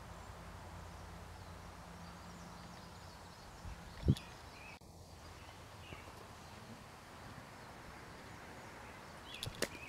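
Quiet outdoor ambience with a steady low hum for the first few seconds, a single dull thump about four seconds in, and a few sharp clicks near the end.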